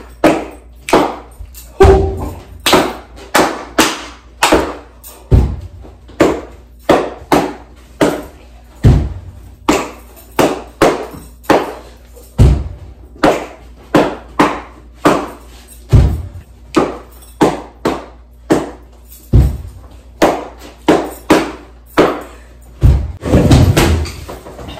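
Instrumental music with a steady beat: sharp percussive hits about two and a half times a second, with a deep bass thud every three and a half seconds.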